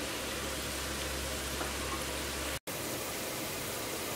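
Diced potatoes frying in hot oil in a wok: a steady sizzling hiss, which cuts out briefly about two and a half seconds in.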